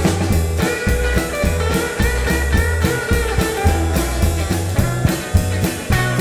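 Rock band playing an instrumental passage: electric guitars, bass guitar and drum kit keeping a steady beat, with a guitar line sliding between notes.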